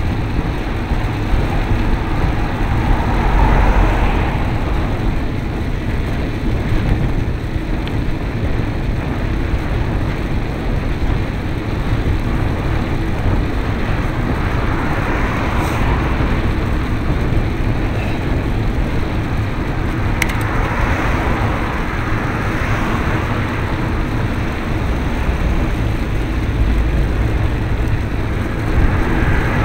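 Wind rumbling over the microphone of a camera on a moving bicycle, with road noise throughout and cars passing several times, their tyre hiss swelling and fading about 3, 15 and 21 seconds in and again near the end.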